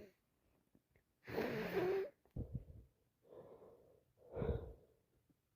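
A woman with a heavy cold draws four quick, voiced catching breaths, the build-up to a sneeze. The first, about a second in, is the loudest.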